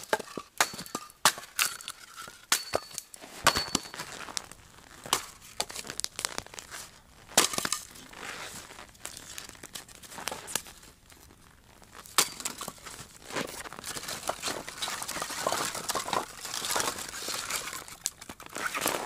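A run of sharp knocks and clinks, a few with a brief high ring, then after a quieter spell a dense stretch of crunching and crackling.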